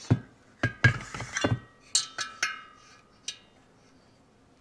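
Metal clinks and knocks from a dial bore gauge and a motorcycle cylinder being handled on a workbench. A quick cluster of knocks in the first two seconds, then a few ringing clinks and one last tap about three seconds in.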